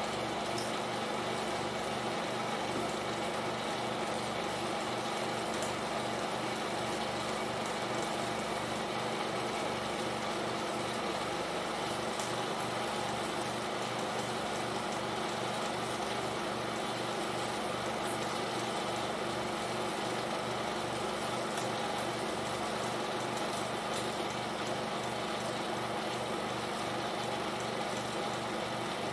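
16mm film projector running a film loop: a steady mechanical whir with a fast, even pulse.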